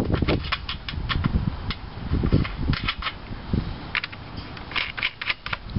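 Small nuts clicking and rattling as fingers thread them by hand onto the mounting studs of a lawnmower's recoil starter cover. Irregular light clicks, with dull low knocks among them.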